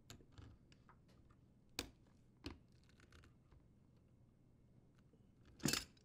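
Pliers working a spring hose clamp onto a dishwasher drain hose: faint scraping and clicks, two sharper clicks about two seconds in, and a louder click near the end.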